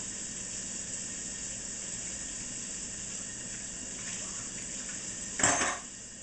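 Filet mignon searing in a hot pan, a steady sizzle. A brief, louder noise cuts in about five and a half seconds in.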